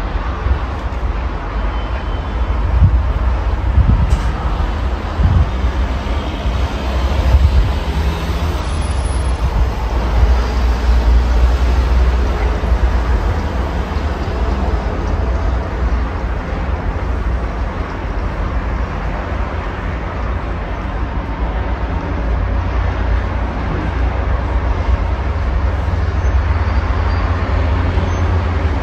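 Steady road traffic: cars and trucks passing on a multi-lane road, heard as a continuous wash of tyre and engine noise over a heavy low rumble.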